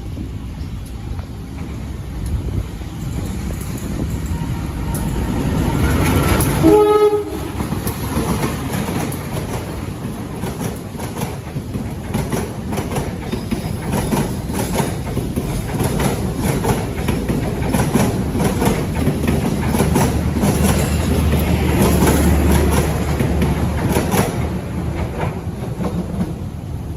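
A train passing at speed: its horn sounds once, briefly, about a quarter of the way in, then the carriages run by with a steady clickety-clack of wheels over the rail joints.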